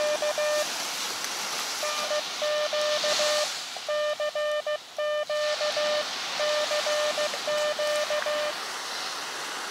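Morse code (CW) from an Elecraft KX2 transceiver's speaker: a single steady-pitched beep keyed in dots and dashes, sent in several groups with short gaps, over the steady wash of ocean surf.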